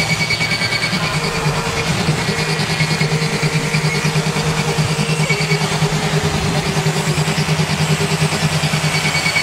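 Live noise music from effects pedals played through loudspeakers: a dense, distorted wall of sound over a fast-throbbing low drone, with steady high whining tones and a middle tone that comes in about a second in.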